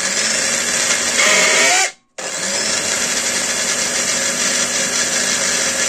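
Philips ProBlend 4 blender motor running bare in its base, a loud whir with a high whine, its shaft freed with WD-40 and spinning normally. About two seconds in the whine drops in pitch, the motor cuts out, and it starts again at once.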